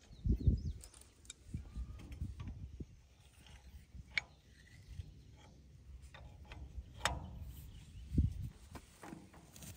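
Hand wrench working a bolt on a Farmall 140 tractor's cultivator mount: scattered sharp metal clicks and light clanks, with a few dull low thumps.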